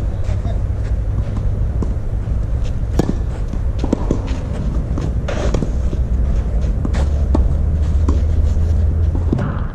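Tennis rally: sharp pops of racket strings striking the ball, the loudest about three seconds in, with lighter knocks between them over a steady low rumble.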